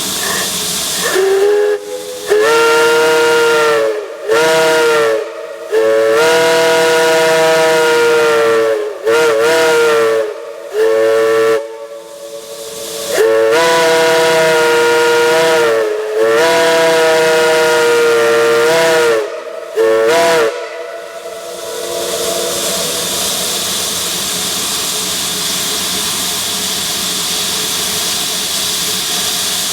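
Steam locomotive whistle sounding in a series of about eight long and short blasts, several tones at once. A steady hiss of escaping steam runs underneath, and the hiss continues alone for the last third.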